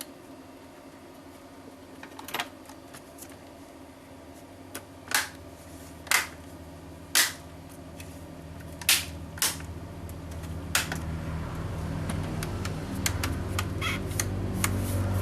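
A series of sharp, separate clicks, about eight of them a second or so apart, followed by a low hum that grows steadily louder over the last few seconds.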